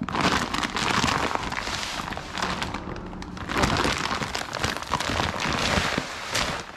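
Sunflower seeds being poured out and pattering onto a concrete floor: a continuous dense rattle of many small clicks.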